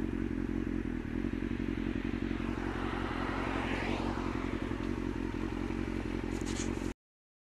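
Motorcycle engine running steadily on the move, with wind and road noise, picked up by a helmet camera. The sound cuts off abruptly near the end.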